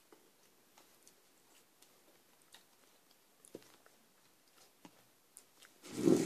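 Quiet eating of instant noodles: soft chewing with scattered small clicks, and one short, louder noisy sound near the end.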